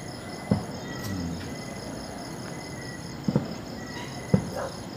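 Distant aerial firework shells going off: three short bangs, about half a second in, a little after three seconds and near the end. Crickets chirp steadily behind them.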